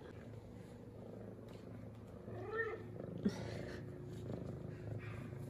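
F2 Savannah cat purring steadily as she rubs and headbutts, with one short meow that rises and falls about halfway through and a single sharp tap just after it.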